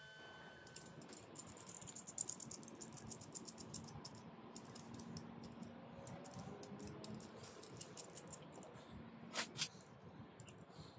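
Small metallic clicks and rattles of steel hex nuts being handled on a threaded rod: a rapid, irregular run of light ticks, then two sharper clicks near the end.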